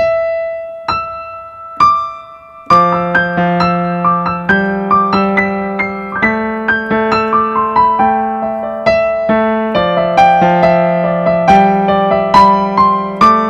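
Background music on an electric piano. Three single notes ring out about a second apart, then a gentle melody over chords begins about three seconds in.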